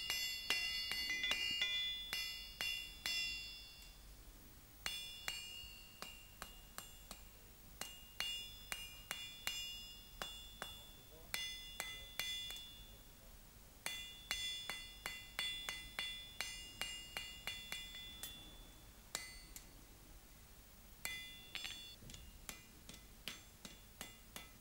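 Hand hammer striking a red-hot iron bar on an anvil, about three blows a second with a bright anvil ring after each. The blows come in runs of a few seconds with short pauses, as the bar end is flattened into a leaf shape.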